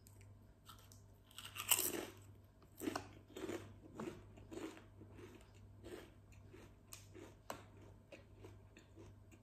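A person bites into a potato chip about two seconds in, then chews it in a run of crisp crunches that grow fainter.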